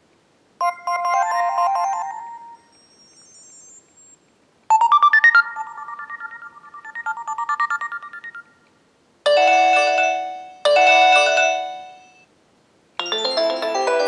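HTC One (M8) ringtones previewed one after another through a Samsung Galaxy Note 3's loudspeaker: a short chiming melody, then a second one, then the same bright chord struck twice, and a fuller tune starting near the end. Each preview stops short before the next one is tapped.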